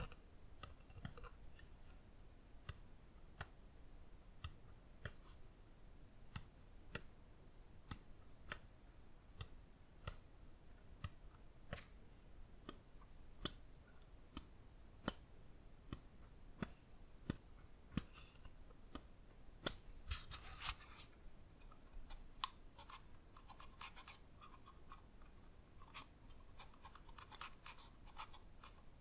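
Lamzu Inca gaming mouse buttons being clicked one at a time, a crisp click about every 0.6 seconds. Twice, near the middle and towards the end, a quicker run of fainter ticks and rubbing breaks in.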